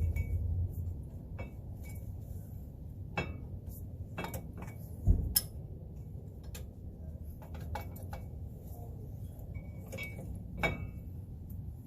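Scattered metal clinks and knocks of hand tools working on a pickup's front disc brake caliper and pads, the loudest knock about five seconds in.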